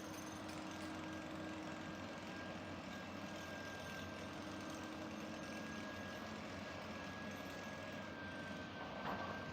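Excavator engine running steadily while digging, with a thin steady high tone above it and a short louder noise near the end.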